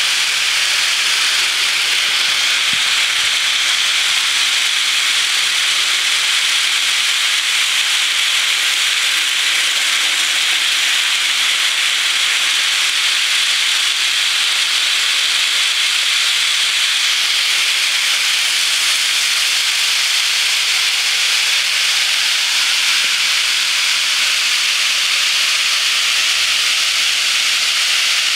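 Long HO scale model freight train running fast and continuously around a track spiral: a steady, even rushing hiss of its many wheels rolling on the rails.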